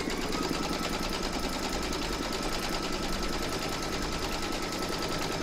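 Embroidery machine stitching at a steady speed, a rapid, even needle clatter with a steady motor whine, sewing the first placement-outline stitch on hooped stabilizer.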